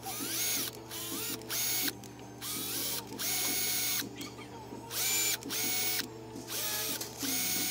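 Cordless drill with a 7/32 bit drilling holes into the top of a car radio head unit. It runs in a series of short trigger bursts, each whine rising in pitch as the motor spins up and then holding steady.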